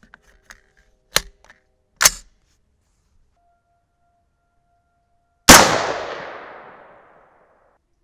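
A couple of sharp mechanical clicks, then a single unsuppressed shot from a .223 AR-15 fitted with an 18-inch White Oak Armament SPR barrel, about five and a half seconds in, with a long echo fading over about a second and a half.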